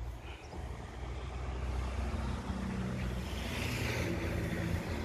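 A motor vehicle engine running steadily, joined after about two seconds by higher engine tones and a broad rush of noise that swells a few seconds in.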